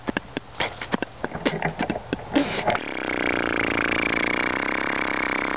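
A run of sharp, irregular clicks and snaps. About halfway through, a steady motor-like drone with many overtones starts and holds.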